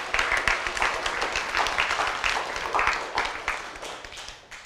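Small audience applauding, the clapping dying away near the end.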